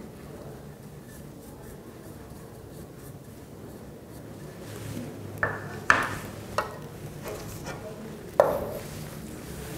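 A brush softly scrubbing leftover grain powder out of a sample cup over a glass beaker. From about halfway in come four sharp clinks with a short ring, the last one near the end, as the brush, cup and glass knock together and are set down.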